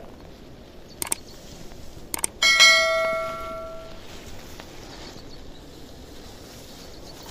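Subscribe-button overlay sound effect: two short mouse-like clicks, then a single bright bell ding that rings out and fades over about a second and a half.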